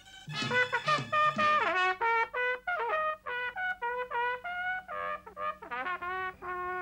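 Trumpet playing a lively solo melody of short, separate notes, some bending down in pitch, over a held low note in the accompaniment.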